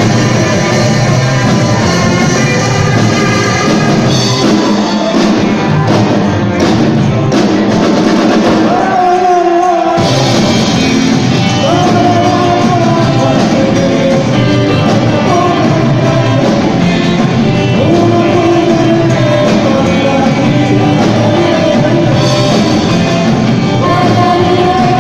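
Live rock and roll band playing with a lead vocal, heard in a large hall. About four seconds in the bass and drums thin out for a break with a held sung note, and the full band comes back in about ten seconds in.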